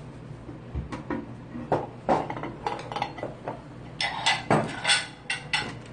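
Ceramic plates, bowls and cutlery clinking and clattering against each other and the table as dishes are cleared away, a rapid scatter of short knocks that gets busier about four seconds in.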